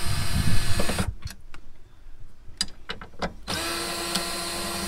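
Cordless drill-driver running in two short bursts with a steady motor whine, the second one longer, with a few sharp clicks and knocks between them.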